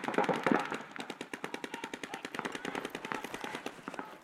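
Paintball markers firing in rapid strings, a fast, even run of sharp pops that continues throughout.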